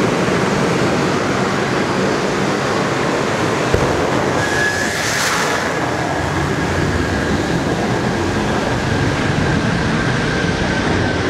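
The turbocharged inline five-cylinder engine of an Audi S2 drag car idling steadily. A thin steady whistle joins about four seconds in, with a brief hiss about a second later.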